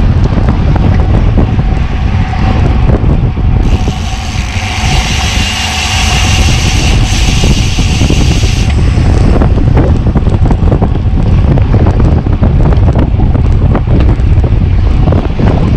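Strong wind buffeting the microphone, with a rushing hiss from about four to nine seconds in.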